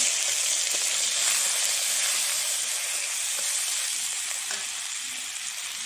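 Garlic paste dropped into hot mustard oil in a black iron wok, sizzling sharply as it goes in and then slowly quietening while it is stirred with a spatula.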